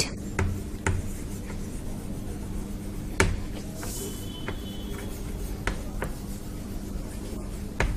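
Chalk tapping and scratching on a blackboard as words are written, faint, with scattered light ticks and one sharper tap about three seconds in. A steady low hum runs underneath.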